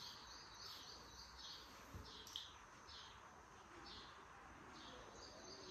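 Near silence: quiet room tone with faint, short high chirps repeating about twice a second, like a small bird calling in the distance.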